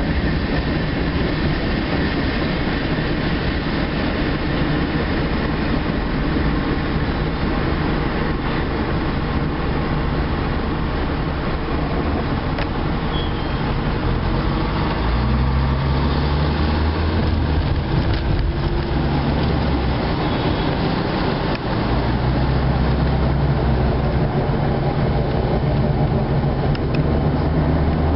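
Heard from inside a car: a freight train's cars rolling past a grade crossing with a steady rumble, then the car's own engine and road noise as it crosses the tracks and drives away. The low engine drone shifts about halfway through and again near the end.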